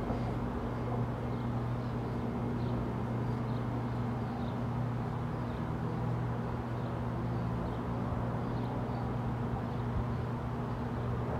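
Steady low hum around the railway tracks, unchanging throughout, with faint high bird chirps about once a second.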